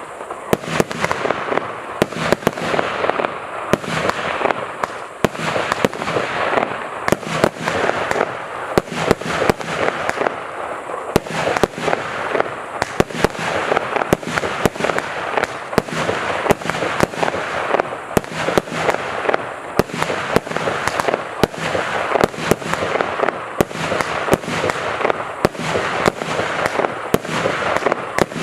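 ОС6910 'Tango' firework battery (a multi-shot cake) firing continuously: a rapid string of sharp bangs, a few a second, over a steady crackling hiss.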